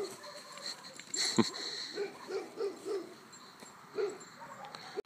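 Dog barking, a quick string of short barks about halfway through and another a second later. A single thump about a second and a half in.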